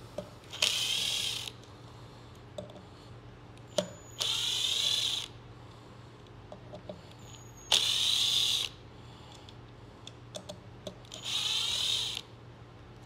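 Power screwdriver running in four short bursts of about a second each, backing out mounting screws. Small clicks of screws and parts being handled come between the bursts.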